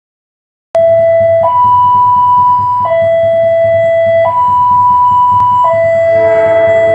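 Railway level-crossing warning siren: an electronic two-tone alarm switching between a lower and a higher tone about every one and a half seconds, starting just under a second in. Near the end the horn of the approaching train sounds under it.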